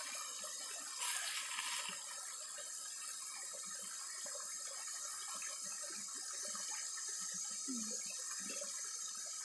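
Creek water running steadily over rocks, briefly louder about a second in.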